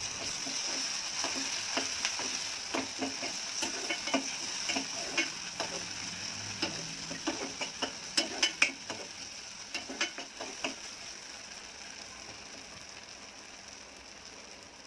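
Ground masala paste frying in sesame oil in a kadai, sizzling steadily while it is stirred, with a utensil scraping and knocking against the pan over the first ten seconds or so. The stirring knocks stop near the end and the sizzle slowly fades.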